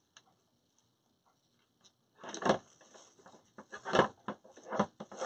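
Deco mesh rustling and crinkling in several short bursts as it is handled and scrunched, starting about two seconds in.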